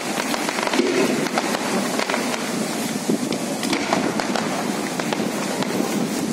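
Fireworks fountains spraying sparks, giving a steady hiss and crackle of many small rapid pops without any single big bang.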